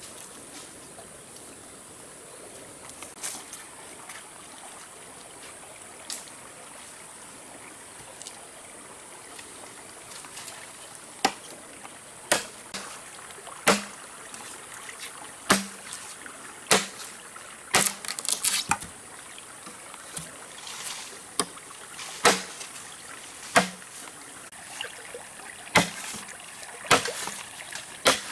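Sharp chopping blows on wood, one about every second and a half, starting about eleven seconds in, over a steady high hiss.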